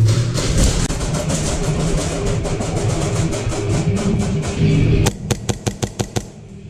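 Music with guitar and drums. About five seconds in, a quick run of sharp clicks stands out as the music drops away.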